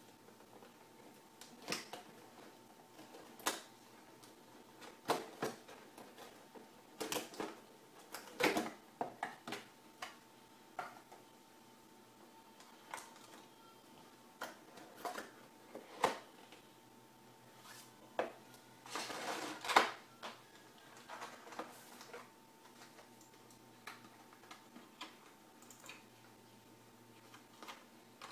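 Cardboard box and clear plastic packaging tray handled by hands: scattered clicks, taps and knocks, with a longer rustling scrape a little before two-thirds of the way through, as the tray holding the mouse is worked loose and lifted out of the box.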